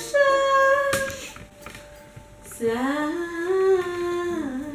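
A woman's voice humming two long drawn-out notes. The first is high and ends about a second in; after a short pause comes a lower note that rises slightly, is held for about two seconds, then dips away. There is a single sharp click about a second in.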